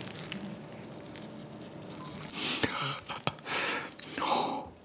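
Close-miked wet squishing and small clicks of eating soy sauce marinated raw crab (ganjang gejang) with rice. The sounds are soft at first and grow into louder wet, squelchy swells with a sharp click about halfway in.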